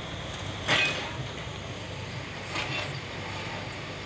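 Steady low rumble of a vehicle on the move, with a brief louder rush just under a second in.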